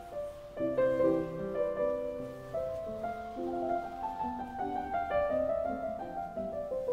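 Background piano music, a gentle classical-style melody with chords.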